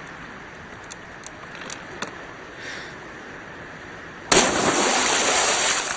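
A person jumping from a height into a lake hits the water about four seconds in: a sudden loud splash that holds for over a second and then eases off. Before it there is only a faint steady background with a few soft clicks.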